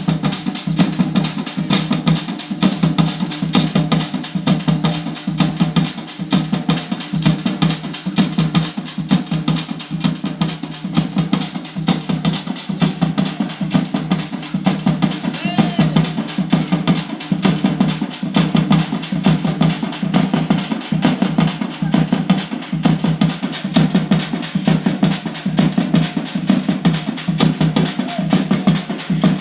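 Drums beaten in a fast, unbroken rhythm.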